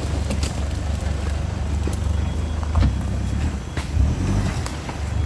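Off-road 4x4 vehicle engine running steadily at low revs, with scattered short clicks and knocks over it.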